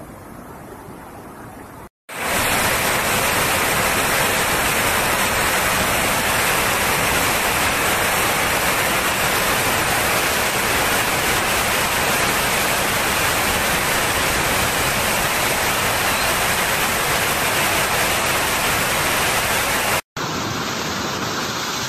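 Muddy flash-flood torrent rushing: a loud, steady rush of water. It is quieter for the first two seconds, then loud, with a brief break near the end.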